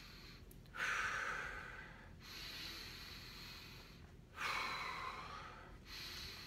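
A man breathing slowly and deliberately, about four breath sounds each lasting one to two seconds. These are deliberate breaths of a diaphragmatic breathing exercise, with each inhale paired to a contraction of the leg muscles.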